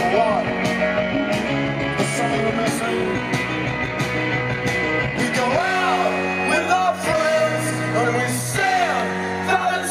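Rock band playing live: electric guitars, bass and drums, with a male singer's vocals over them.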